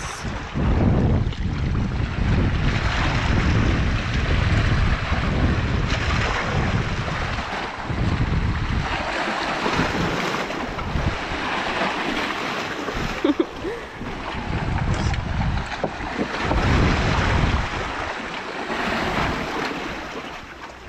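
Wind buffeting the microphone over water splashing and washing against riprap rocks at the shoreline. The wind rumble comes and goes in gusts, and there is one sharp knock about two-thirds of the way through.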